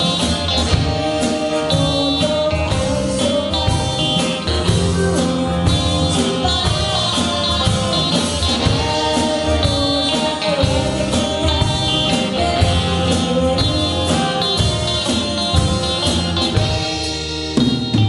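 Live band playing a pop-rock song: a woman singing lead over electric guitars, electric bass and a drum kit.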